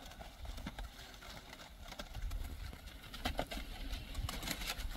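Steering sled's skis hissing and scraping over snow, with scattered crackles, growing louder from about two seconds in as the sled comes nearer, over a low rumble.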